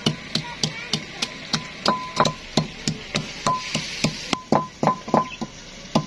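Wooden pestle pounding garlic and green chillies into a paste in a clay bowl: steady knocks about three a second, each with a short ring from the clay.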